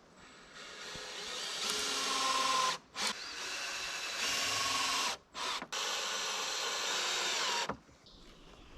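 Power drill running in three runs of about two seconds each, with brief blips between them. The first run builds up in loudness.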